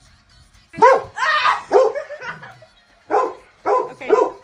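Dog barking: a run of short, loud barks starting about a second in, with a pause in the middle, then several more near the end.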